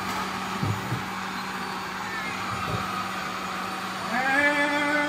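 Sujata mixer grinder running steadily, blending mango pulp for aam ras. About four seconds in, a held, evenly pitched tone rises in over the motor noise.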